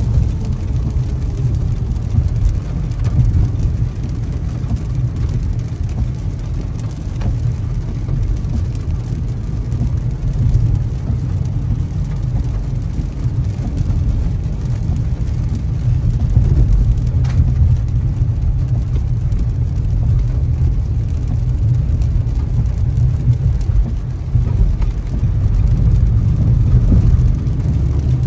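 Steady low road and engine rumble inside a moving car's cabin on a wet highway, with the hiss of tyres and rain on the windshield over it.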